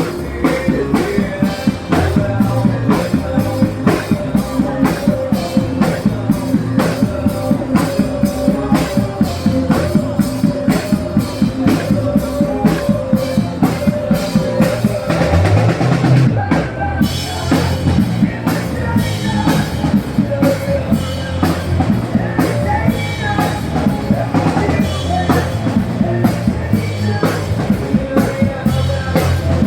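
Instrumental pop music with a steady drum-kit beat and bass, a short break about halfway through before the beat picks up again.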